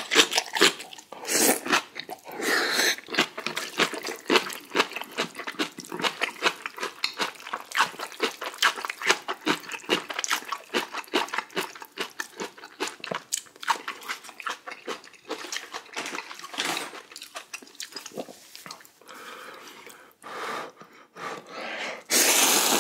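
Close-up wet eating sounds of spicy ramen noodles and kimchi: a fast, continuous run of small wet chewing clicks and smacks, with loud slurps at the start and again near the end.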